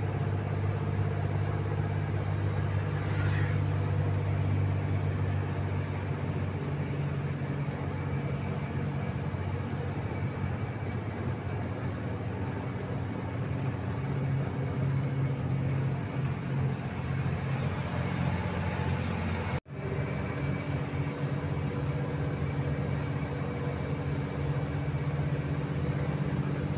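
Truck engine running steadily at cruising speed with tyre and road noise, heard from inside the cab as a low, even drone. The sound drops out for an instant about twenty seconds in.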